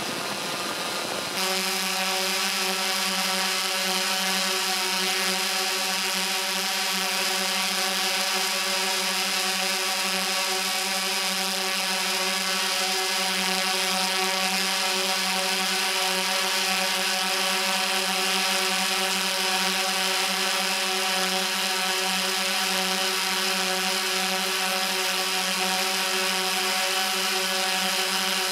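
DJI S1000 octocopter's eight motors and propellers running steadily in flight, picked up by the camera slung beneath it: an even hum of several stacked pitches with hiss above. The sound shifts abruptly and gets slightly louder about a second in.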